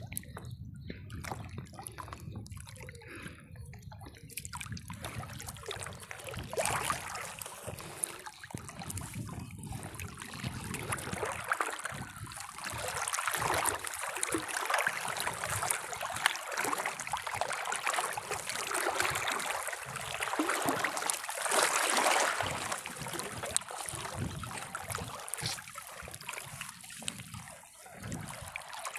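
Water trickling and dripping off a fishing net as it is hauled in hand over hand from a lake, with small splashes; it grows louder from about six seconds in.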